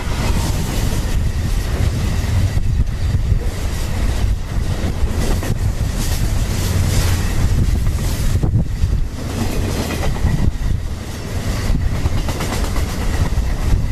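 Freight train of open-top gondola wagons rolling past at close range: a steady heavy rumble of wheels on rail, broken by repeated clacks as the wheels cross the rail joints.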